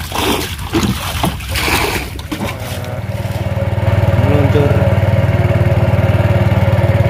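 Water splashing and knocks against a wooden boat, then a small petrol boat engine comes in about two and a half seconds in, builds up over a second or so, and runs steadily at speed as the boat moves across the water.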